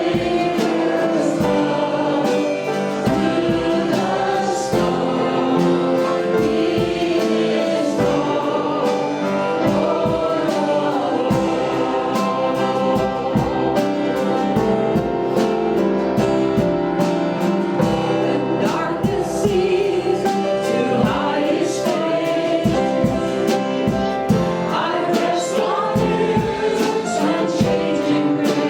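A Christian worship song sung by a group of voices with instrumental accompaniment, running continuously.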